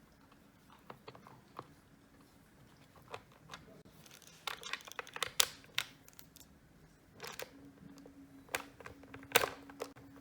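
Small screwdriver turning screws into a mini RC toy car's plastic body by hand: scattered clicks, scrapes and knocks of handling, starting about four seconds in.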